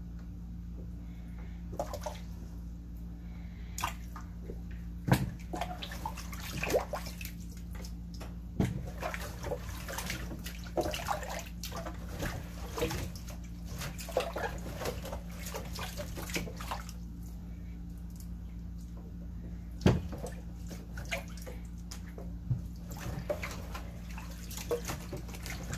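Hands washing beets in a sink full of water: irregular swishing and splashing, with sharper knocks, the loudest about five seconds in and again near twenty seconds.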